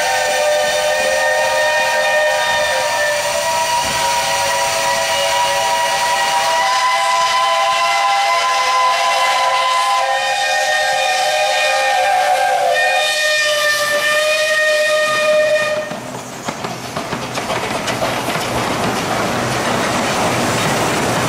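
Several 15-inch-gauge steam locomotive whistles sounding together in one long held chord of different notes for about sixteen seconds, with notes dropping out and coming in as individual whistles stop and start. The whistles then cut off, and loud steam hiss and running noise follow as a steam locomotive and its train pass close by.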